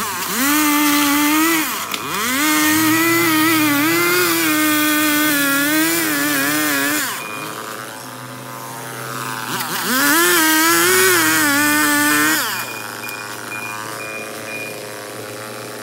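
Chainsaw run at full throttle in two long spells while cutting into a tree trunk, its pitch wavering and sagging under the load, and dropping back to a quieter, lower running between and after the cuts.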